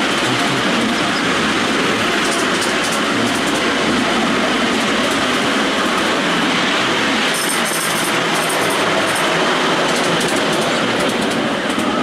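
Ride-on miniature railway train, a miniature BR class 31 locomotive with passenger cars, running along the track as heard from a passenger car: a steady rumble of wheels on rail, with a short run of clicking about seven to nine seconds in.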